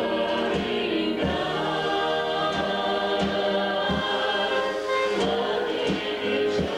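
A vocal group singing a gospel song in harmony over instrumental accompaniment with a steady beat.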